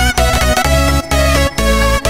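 Electronic dance music: a heavy bass beat pulsing about twice a second under sustained synth tones.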